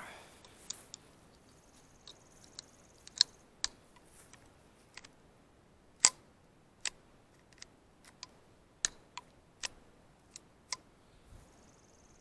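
Magazine and action of a .22 LR rifle being handled: a string of sharp, irregular metallic clicks, the loudest about six seconds in.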